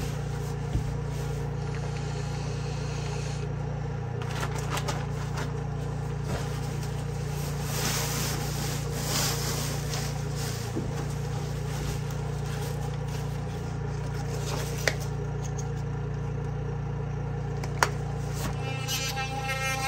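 Nylon sleeping bag and camping gear rustling and scraping as they are handled and laid out on a wooden bunk, with a few sharp clicks. A steady low hum runs underneath.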